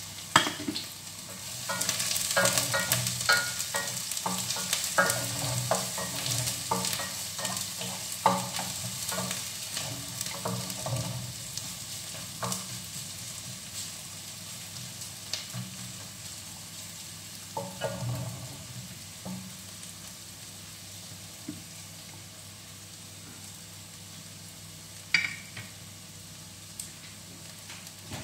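Onion and ginger sizzling steadily in hot oil in a stainless steel pot, with a utensil clicking and scraping against the pot as they are stirred. The stirring clatter is busiest for the first dozen seconds, then the sizzle goes on with only a few scattered knocks.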